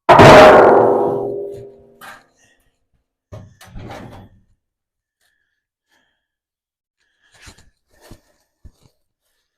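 A loud metallic clang at the start, ringing on in several tones and fading out over about two seconds, followed by a few quieter knocks of metal parts being handled.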